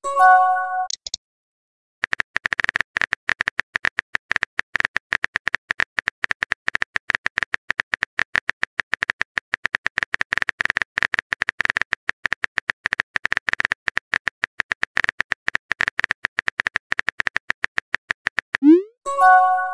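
Texting-app sound effects: rapid, uneven phone-keyboard typing clicks, opened by a short rising swoop and chime of a message popping up and closed by the same swoop and chime near the end as the next message appears.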